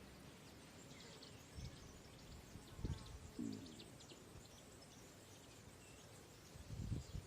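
Faint outdoor ambience with small birds chirping in short quick notes, and a few low dull thumps.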